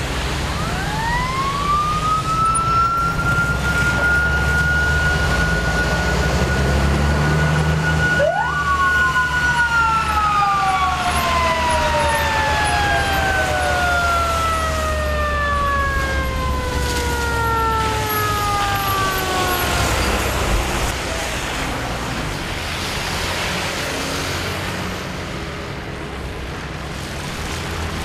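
Fire engine siren winding up in about a second to one steady high pitch, holding it for about nine seconds, then sliding slowly down over about ten seconds; a second siren tone sweeps up and falls away about eight seconds in. A heavy truck engine rumbles underneath.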